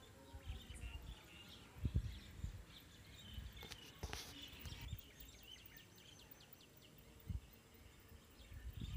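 Faint small birds chirping steadily in the background, with a few soft low thumps and a brief scrape about four seconds in as a fish is pressed and rubbed on a salted concrete floor.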